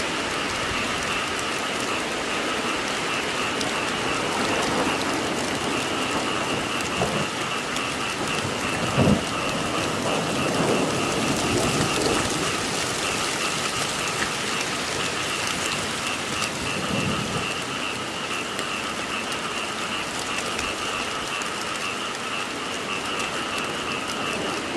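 Steady, heavy rain falling, with a continuous chorus of frogs croaking behind it. A brief low thump comes about a third of the way in.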